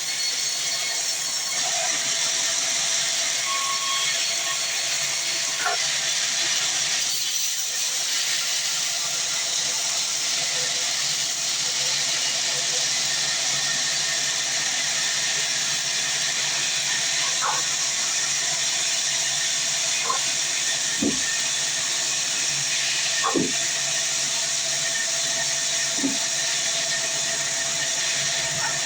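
Sawmill saw running with a steady high hiss and a faint steady hum, with a few short faint knocks in the second half.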